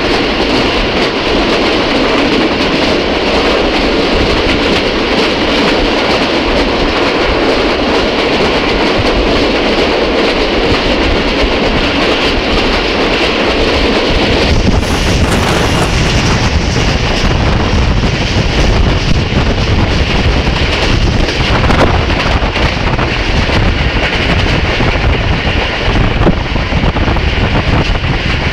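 Pakistan Railways train running at speed, heard from on board: a steady, loud rumble of wheels on the rails. About halfway through, the deep rumble grows heavier.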